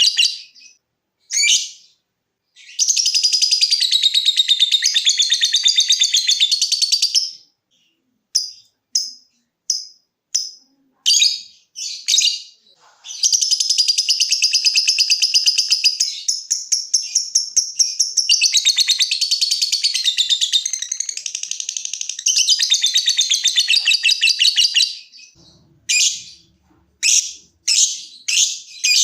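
Lovebird singing: two long, rapid chattering trills (the 'ngekek'), the longer lasting about eleven seconds, broken up by runs of short sharp chip notes (the 'ngetik').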